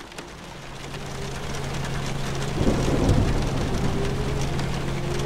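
Rain pattering, fading up, with a rumble of thunder about two and a half seconds in and a steady low hum underneath.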